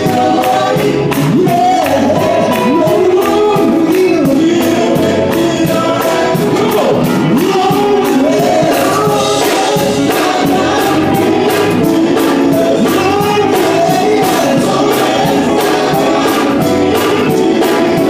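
Male gospel vocal group singing in harmony through microphones and a PA, over a steady beat.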